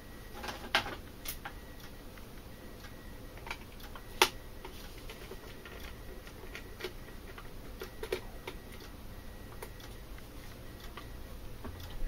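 Scattered light clicks and taps of a small screwdriver working the screws out of a plastic TV remote control case, with one sharper tap about four seconds in.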